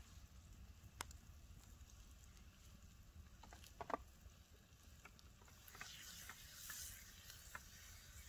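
Near silence with a campfire crackling faintly: a few sharp crackles, the clearest about a second in and a small cluster around four seconds, and a soft hiss for a second or so past the middle.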